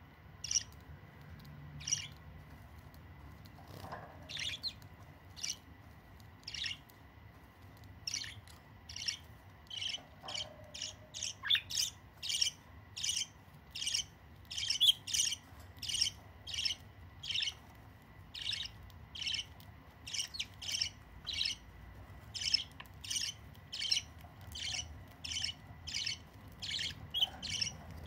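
Budgerigar chick giving short, high chirping calls over and over, a few spaced ones at first and then about two a second from around eight seconds in: begging to be fed regurgitated food by the adult budgie.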